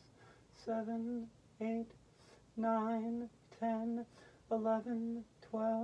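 A woman's voice counting slowly in a level sing-song chant, each number a short held note on the same pitch, about one a second.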